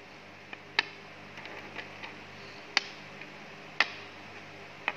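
Small plastic connecting cubes set down one by one on a paper-covered board: a handful of separate sharp clicks at uneven intervals.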